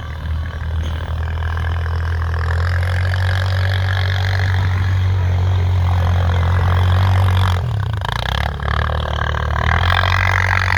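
Four-wheeler (ATV) engine running steadily under load, its pitch wavering briefly about eight seconds in, over a steady rushing noise.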